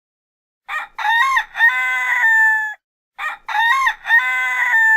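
Rooster crowing twice, about two seconds each: a short first note, a broken stepped middle and a long held final note that drops slightly at its end.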